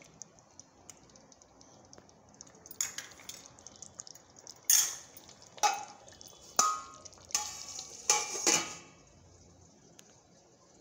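Steel spoon and stainless-steel pot clinking as thick tomato chutney is stirred and the pot's steel lid is handled: a handful of sharp metal knocks between quiet stretches, some ringing briefly.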